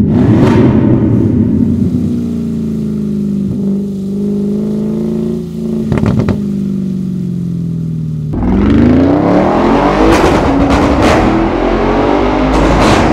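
Audi RS6 C7's 4.0-litre twin-turbo V8 through an iPE aftermarket exhaust: loud under throttle at first, then lifting off with the engine note falling slowly for several seconds, broken by a couple of sharp cracks. About eight seconds in it comes back on hard, the pitch climbing as it accelerates, with a few more sharp cracks.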